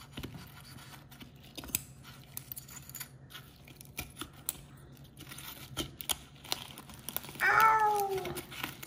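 Kitchen shears snipping and crunching through a red sea urchin's shell around the mouth, a run of scattered sharp clicks and crackles. Near the end a person lets out a drawn-out "ooh", the loudest sound here.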